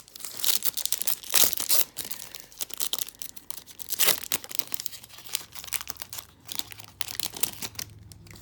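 Plastic-foil trading-card pack wrapper being torn open and crinkled by hand, in a run of irregular crackling rips.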